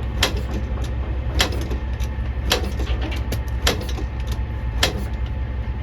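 Can-Am DS90 quad being kick-started: five sharp clanks of the kick-starter lever, about one a second, each with a short falling whir as the engine turns over without catching. A steady low hum lies underneath.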